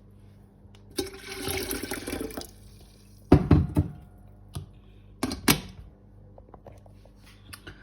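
Water running into an electric kettle for about a second and a half, then two loud knocks as the kettle is handled, and a few light clicks.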